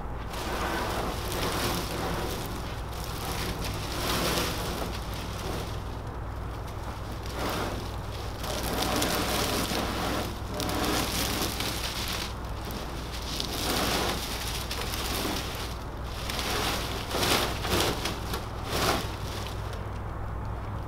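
Dry grass thatch of a duck boat blind rustling and crackling in irregular swells as its panels are handled and raised, with a few sharper knocks near the end.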